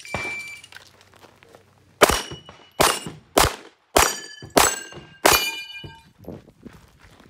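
A short shot-timer start beep, then six pistol shots about 0.6 s apart, each followed by the ringing clang of steel star knock-off plates being hit.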